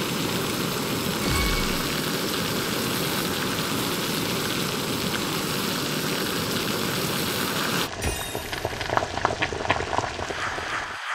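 Chicken galbi sizzling on a metal grill grate over an oak-wood fire, a steady hiss. About eight seconds in it gives way to a pot of doenjang stew bubbling, with many small pops.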